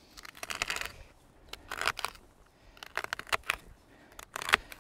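A knife slicing a stick of raw celery into chunks on a chopping board: a series of short, crisp cuts in several quick groups.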